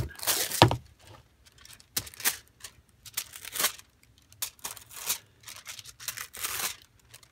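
Thin metallic transfer foil sheet crinkling as it is pressed onto a glued paper page and peeled back up, in short irregular rustles with gaps between them.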